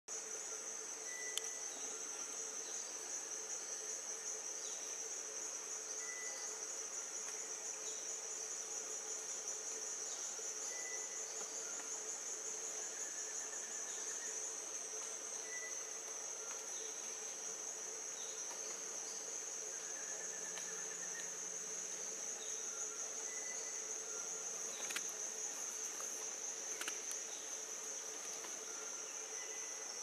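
Steady high-pitched chorus of tropical forest insects with a slight pulsing, over a lower steady drone. Short high notes repeat every four or five seconds, with two brief rising trills and a few faint clicks.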